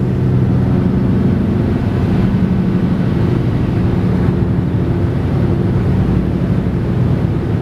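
Inside a car cabin on a wet highway: steady engine hum with tyre and road noise.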